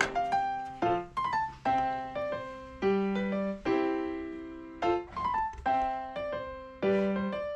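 Background piano music: gentle notes and chords that start crisply and fade, in a short phrase repeating about every four seconds.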